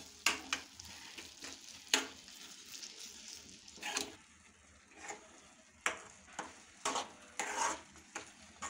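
Metal spoon stirring thick semolina kesari bath in a steel kadai, scraping and tapping against the pan in irregular strokes, several close together near the end.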